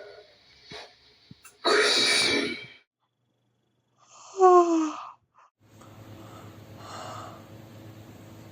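A person yawning: a loud breathy intake of air about two seconds in, then a short sigh-like voice sliding down in pitch, and a softer breath later on.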